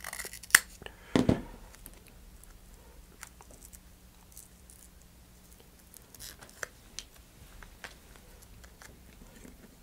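Scissors snipping through a strip of adhesive Velcro tape about half a second in, followed by a dull thump. After that, faint scattered clicks and light rustling as the small adhesive Velcro pieces are handled.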